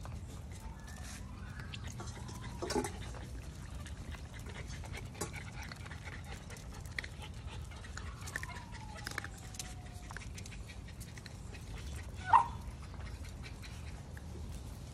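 Miniature Schnauzer puppies whimpering and yipping: a drawn-out falling whine a little past the middle, and one sharp yip near the end that is the loudest sound, over scattered small clicks and taps.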